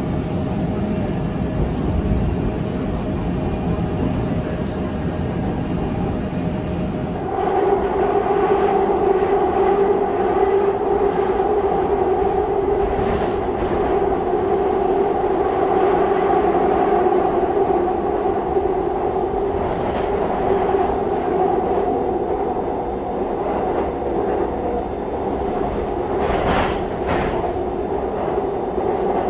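Seoul Subway Line 2 train running at speed over a river bridge, heard from inside the car as a steady low rumble. About seven seconds in the sound changes to a louder run with two steady humming tones over the rumble, and a few sharp clicks come near the end.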